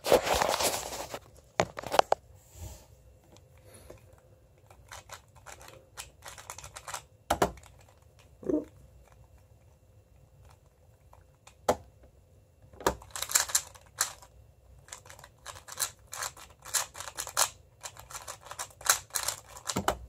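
MoFang Jiaoshi MF2S plastic 2x2 speedcube being turned by hand, its layers clicking. The clicks come scattered at first, then in a dense, fast flurry through the second half that sounds like a full speed-solve.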